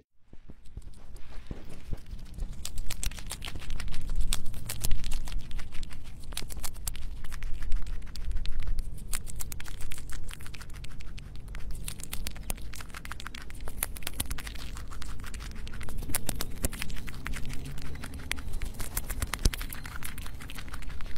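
Ground squirrel chewing a dandelion stalk and flower close to a microphone: rapid, irregular crisp clicks and crunches, over a low rumble.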